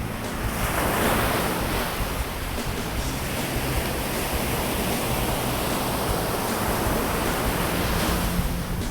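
Ocean surf washing onto a beach: a steady rush of water, with a wave swelling up about a second in.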